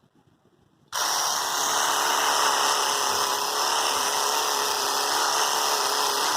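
Philips cordless epilator switched on about a second in, its motor and tweezer head running with a steady buzz.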